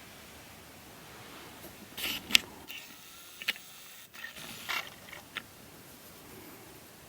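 Handling noise: a short run of sharp clicks and scrapes, the loudest a single click about two seconds in, then a few softer clicks and a rustling scrape.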